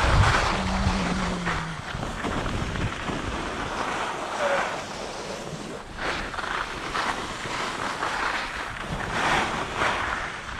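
Wind rushing over the microphone, with the scrape of skis on packed snow swelling and fading with each turn.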